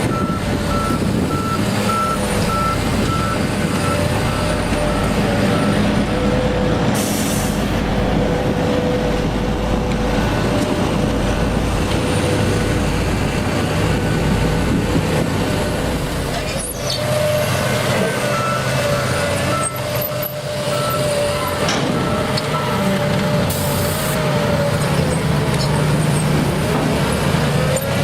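Heavy construction machinery running with a steady engine rumble, while a reversing alarm beeps about twice a second for several seconds at the start and again about two-thirds of the way in.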